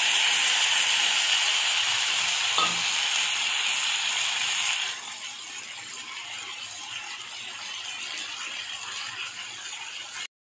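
Sizzling in a kadai as wet ground mustard-and-chili paste goes into hot oil with frying bitter gourd and potatoes. The sizzle is loud for about the first five seconds, then settles to a quieter sizzle and cuts off suddenly near the end.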